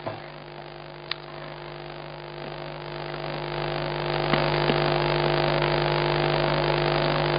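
Steady electrical hum made of several fixed tones, with a hiss that grows louder about three to four seconds in and then holds steady. A couple of faint clicks sound early on and near the middle.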